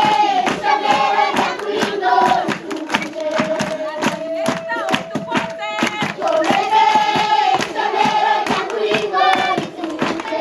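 A group of children singing together with steady rhythmic hand clapping. A long note is held for about a second and a half near the middle.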